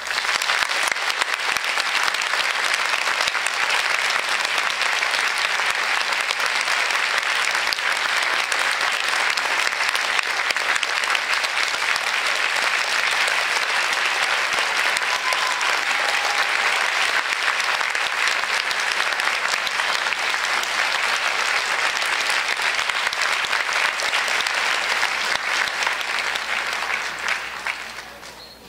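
Audience applauding steadily at the end of a band piece, starting all at once as the music stops and dying away near the end.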